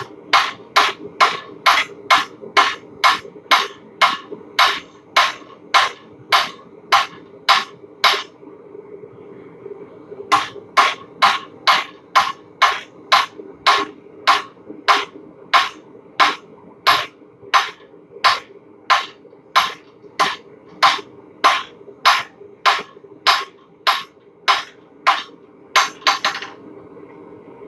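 Blacksmith's hammer striking hot square steel stock on an anvil, about two blows a second, drawing out and tapering the bar. The blows pause for about two seconds partway through, then resume and stop near the end, over a steady hum.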